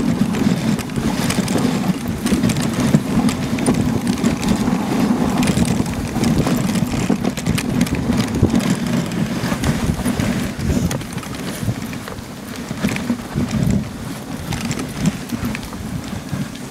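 Dog sled gliding over a packed snow trail: a steady hiss and scrape from the runners, with frequent small knocks and rattles from the sled and harness and some wind on the microphone.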